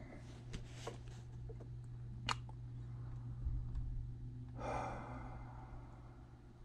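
Steady low room hum with a sharp click about two seconds in, a few faint ticks, and a short breathy rush about four and a half seconds in.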